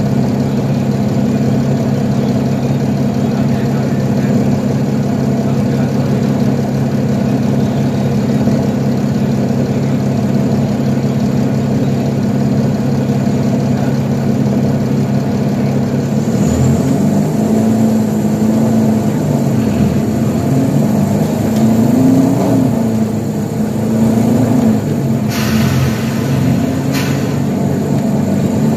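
2012 Nova Bus LFS articulated city bus's diesel engine heard from inside the cabin, idling steadily. About halfway through, its note starts rising and falling as the bus moves off and accelerates. Two short sharp noises come near the end.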